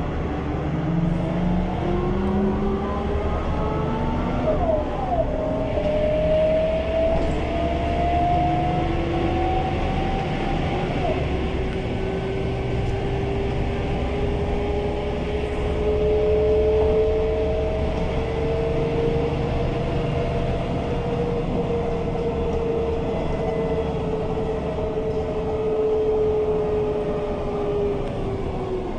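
Mercedes-Benz O345 city bus with a ZF 4HP-500 automatic gearbox pulling away: engine and gearbox whine rise in pitch, break briefly at gear changes about five and eleven seconds in, then hold steady while cruising and fall away as the bus slows near the end.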